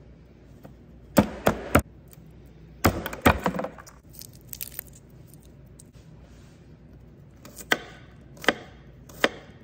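Kitchen knife chopping garlic cloves on a wooden cutting board: a quick run of three knocks about a second in, another cluster around three seconds, then single chops spaced under a second apart near the end.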